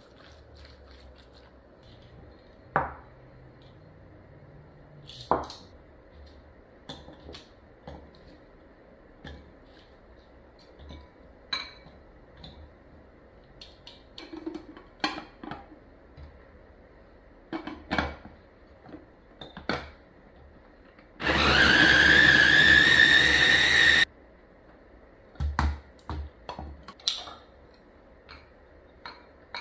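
Glass bowls and utensils clink and knock now and then. A small electric food chopper then runs for about three seconds, a loud steady whine that rises a little in pitch as it spins up and cuts off sharply.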